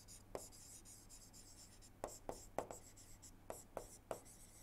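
A stylus writing on a tablet screen: faint scratching with a handful of light ticks as the letters go down, over a steady low hum.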